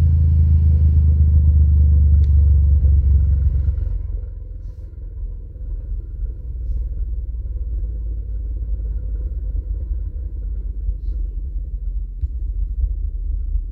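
Klipsch R-120SW 12-inch subwoofer playing deep, steady bass rumble. The rumble drops to a lower level about four seconds in and goes on at that level.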